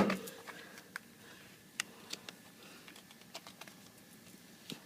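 A few scattered light clicks and taps, irregularly spaced, over a quiet background.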